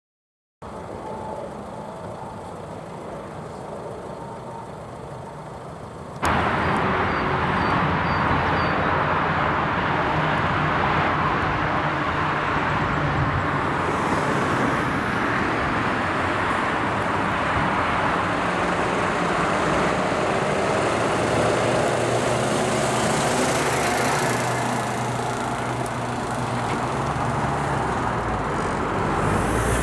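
Diesel truck engines running as THW vehicles drive along the road, with tyre and traffic noise. After a quieter first few seconds the noise steps up about six seconds in, then swells near the end as a truck passes close.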